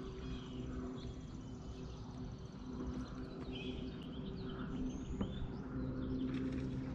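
Birds chirping over a steady low hum, with a rapid high trill through the first few seconds.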